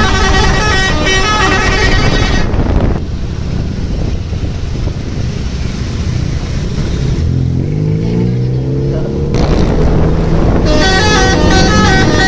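A bus's multi-tone telolet horn playing a stepped, repeating tune, which stops about two and a half seconds in. An engine runs underneath and revs up with a rising pitch near the middle, and the horn tune starts again near the end.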